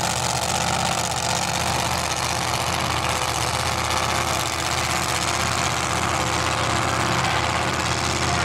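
Supercharged engines of AA/S gasser drag cars idling steadily while the cars roll toward the starting line.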